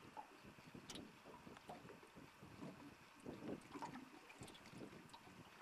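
Faint, irregular lapping of small waves against the side of a small boat, with light wind on the microphone.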